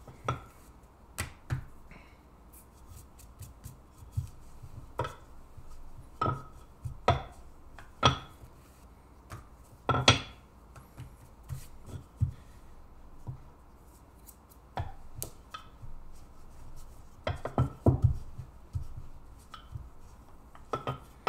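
Wooden rolling pin rolling out dough on a granite countertop, with irregular knocks and taps as the pin and dough are lifted, turned and set back down.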